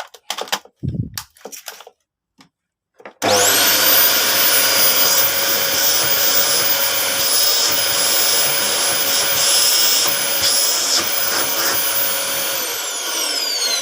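A few handling clicks, then a Panasonic vacuum cleaner's newly fitted replacement motor is switched on about three seconds in. It spins up quickly to a loud, steady high whine and runs smoothly, working properly. Near the end it is switched off and winds down with a falling whine.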